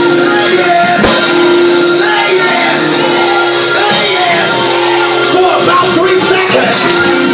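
Loud live church music with a held steady note underneath and a voice singing and shouting over it through a microphone.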